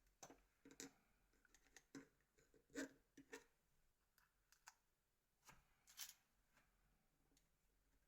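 Faint, irregular clicks and taps of small plastic and metal Nokia 6303ci phone parts being handled and fitted together, most of them in the first six and a half seconds.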